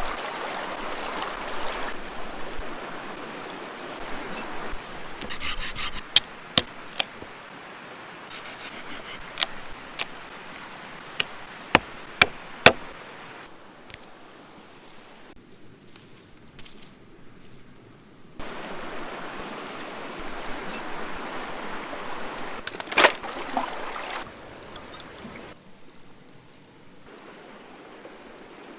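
Food-preparation handling sounds: rubbing and scraping with scattered sharp knocks over a steady hiss, broken into several short clips.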